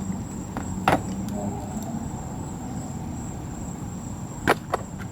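Sharp metallic clicks of brake wheel-cylinder parts being handled and knocked together: one about a second in and two in quick succession near the end, over a steady background hum.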